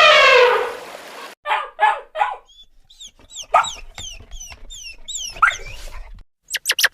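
A string of different animal calls. A loud, held call trails off falling in pitch, then come three short harsh calls, then a run of high, falling peeps, about three a second. A few sharp clicks follow near the end.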